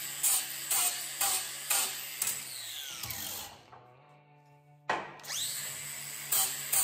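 Cordless angle grinder with a 40-grit flap disc sanding a wooden axe handle, in regular passes about twice a second. About three seconds in it winds down with a falling whine and goes quiet for about a second. Near five seconds it starts again with a rising whine, and the sanding resumes.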